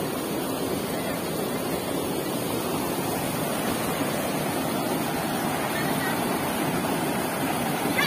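Mountain river rushing over rocks and shallow rapids, a steady rush of water.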